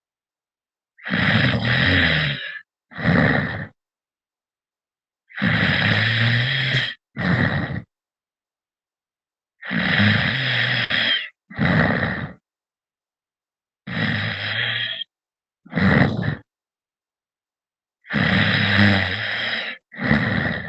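A man snoring, heard over a phone call: about every four seconds a long snore followed by a shorter one, five times, with complete silence in between.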